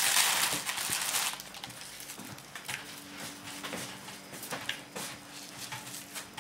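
Thin plastic cap crinkling as it is handled, loud for about the first second and a half, then lighter rustles and small taps.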